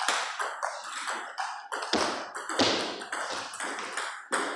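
Table tennis rallies: celluloid-type plastic balls clicking off rubber paddles and bouncing on the tables in quick, irregular succession, with play going on at two tables at once.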